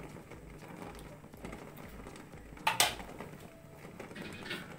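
Chicken curry being stirred in a metal kadai with a plastic spatula, with one sharp knock of the utensil against the pan a little past halfway through.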